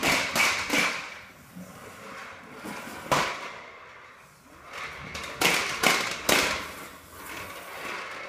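Sharp plastic pops and knocks from a toddler's push toys, in quick clusters: three at the start, one about three seconds in, and three more a little later.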